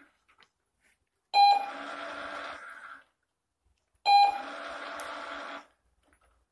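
Treat & Train remote treat dispenser sounding its short beep and then running its motor for about a second and a half as it turns the tray to release a treat. This happens twice, about three seconds apart.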